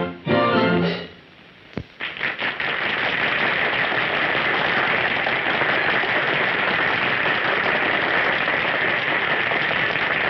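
The last held note of a song ends about a second in. After a short pause, audience applause starts about two seconds in and keeps going steadily.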